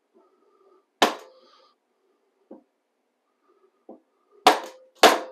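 Hammer blows on a wooden drift, knocking the old cutterhead out of a DeWalt 735 thickness planer. One sharp strike comes about a second in, then two light taps, then two more sharp strikes near the end; each hard blow leaves a brief metallic ring.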